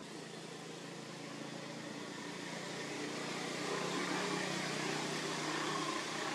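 A motor vehicle running nearby: a steady engine hum with road noise that grows louder for about four seconds and then holds.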